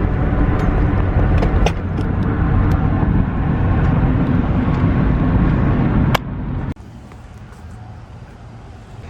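Steady low road rumble inside a moving car, with small ticks over it. About six seconds in there is a sharp click, and the rumble drops off abruptly to a quieter hum.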